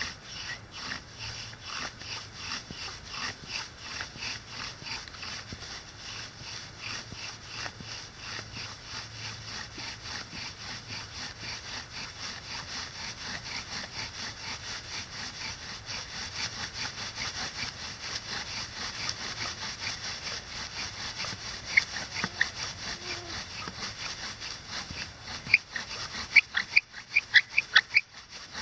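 Bow drill worked with one arm: the wooden spindle rasps back and forth in the hearth board in a quick, even rhythm of bow strokes. Sharp squeaks break in about three quarters of the way through and come often near the end.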